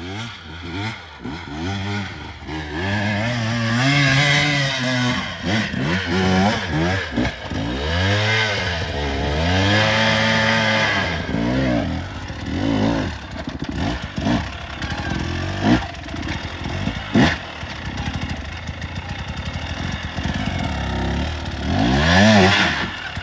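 Enduro dirt bike engine revved hard in repeated bursts, its pitch climbing and dropping again and again as the rider works the throttle. Two sharp knocks come partway through, and it is revved up once more near the end.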